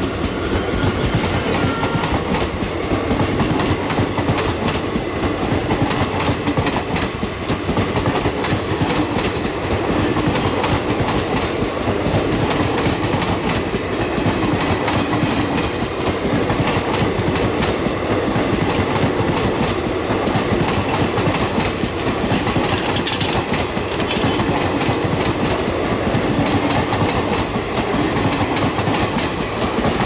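Old ICF passenger coaches of a long express train rolling past close by: a steady, loud rumble with wheels clattering over the rail joints.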